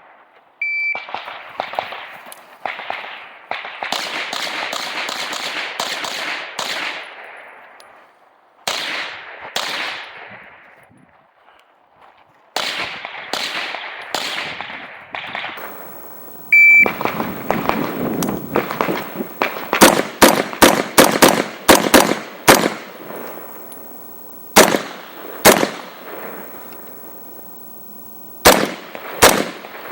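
An electronic shot timer beeps, then a pistol-caliber carbine fires strings of rapid shots. A second timer beep comes partway through and is followed by more fast strings of shots.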